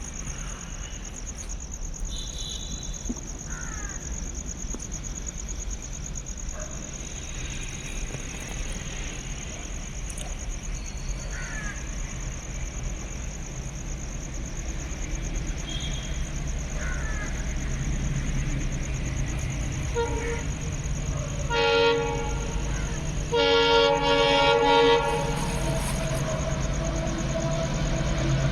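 An Indian Railways locomotive approaching, its rumble growing steadily louder, sounding its multi-tone horn in two short blasts and then one longer blast near the end.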